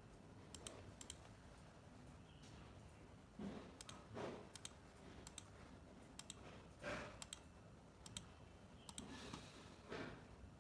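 Computer mouse clicking quietly, about a dozen clicks with some in quick pairs, as the pointer moves through a program's tabs. A few soft swells of noise come between the clicks.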